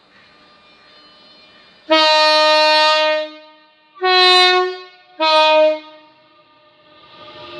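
Two-tone horn of a departing Class 365 electric multiple unit sounding three blasts: a long low note, a shorter higher note, then a short low note again.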